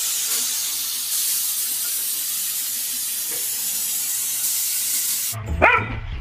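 Bathtub faucet running, water pouring into a filling tub as a steady hiss. It cuts off suddenly about five seconds in, and a dog yips.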